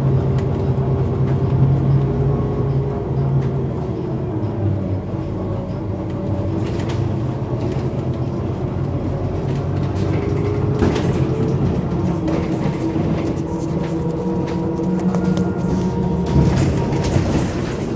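Diesel engine of a 2016 Iveco Urbanway 12 city bus idling steadily at a stop, with a few short clicks in between.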